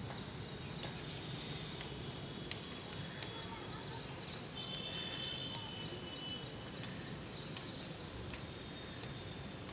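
Steady outdoor city background noise heard from a rooftop, with a few faint clicks and a faint high chirping call lasting about two seconds near the middle.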